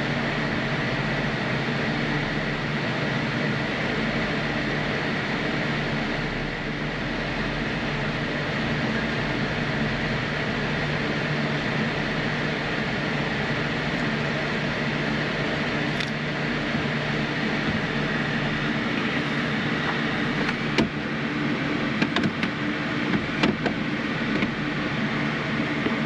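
Gasoline being poured slowly from a plastic gas can into a new fuel-water separator filter, over a steady mechanical hum. A few clicks and knocks come near the end.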